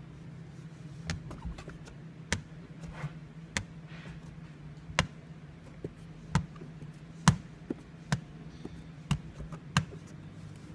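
Irregular sharp taps, about one a second, of a hard squeegee knocking against the inside of a wet windshield as tint film is squeegeed down, over a steady low hum.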